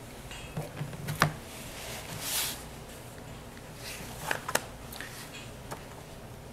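Pages being handled and turned at a lectern: a few soft clicks and knocks, with a short paper rustle a little over two seconds in.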